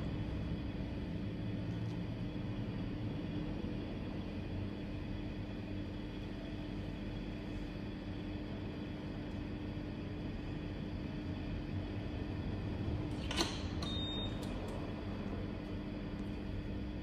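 Steady mechanical hum with a constant low tone, like a small fan running, and one sharp click about thirteen seconds in.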